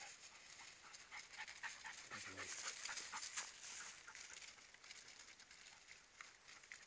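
Two greyhound-cross lurchers at play, faintly panting and rustling through frosted grass, with a short low grunt about two seconds in.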